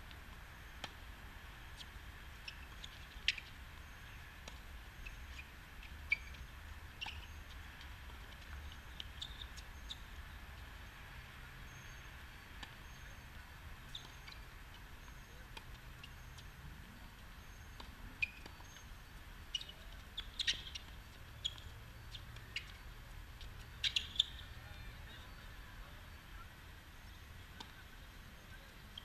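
Tennis ball struck by racket strings during a doubles rally: single sharp pocks a few seconds apart, with a quick pair of hits near the end, over a faint steady outdoor background and a few short high chirps.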